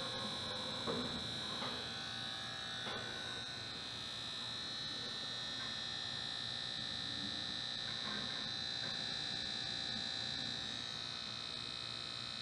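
Samsung PL51E490 plasma TV's sustain boards (Y-SUS and E-SUS) buzzing with a steady high-pitched whine. The uploader traced this noise to a short in the plasma display panel.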